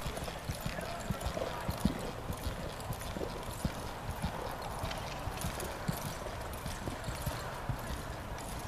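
Hoofbeats of a horse loping on soft arena dirt: an uneven run of dull thuds, a few a second.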